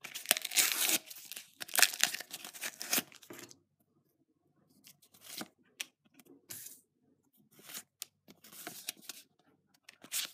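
A Panini sticker packet torn open with a loud rasping rip lasting about three and a half seconds, then, after a short pause, scattered light flicks and rustles as the stickers are leafed through in the hand.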